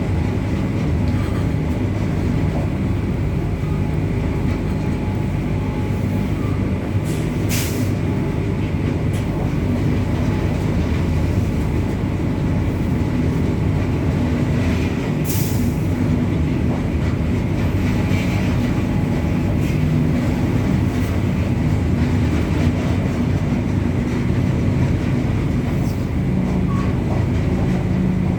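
Indian Railways WAG-9 electric freight locomotive running, a steady loud rumble of wheels on the track and the locomotive's machinery. Two brief high hisses come about 7 and 15 seconds in.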